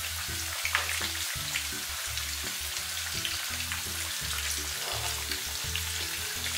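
Banana fritters deep-frying in a pan of hot oil, sizzling steadily with small crackles as thin batter is drizzled into the oil to make a lacy, crisp coating.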